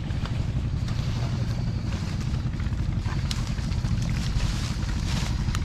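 Small boat's engine running steadily, a low drone with a few faint clicks over it.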